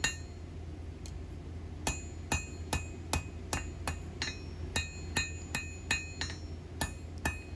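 Blacksmith's hand hammer striking a thin high-carbon steel blade blank on the anvil, shaping the blade's profile. The blows come about two and a half per second, each with a short metallic ring, and start after a pause of nearly two seconds.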